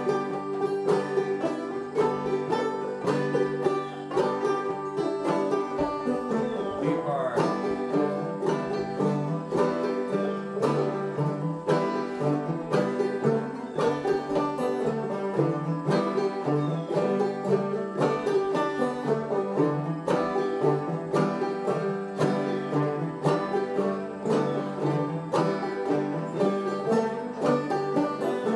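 Several clawhammer banjos playing an old-time tune together in a steady, driving rhythm of picked and brushed notes.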